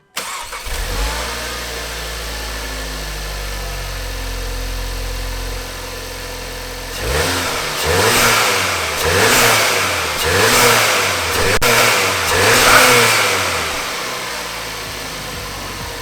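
2019 VW Golf R's turbocharged 2.0-litre four-cylinder on its stock intake, idling steadily for several seconds, then blipped through a quick series of free revs, each rising and falling back, before settling to idle near the end.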